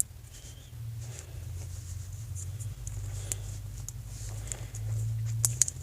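Faint handling noise of small plastic parts: light scratching and rubbing with a few small clicks, over a low steady hum.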